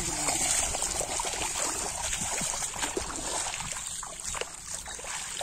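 Bare feet splashing and sloshing step by step through shallow water and mud in a flooded rice paddy.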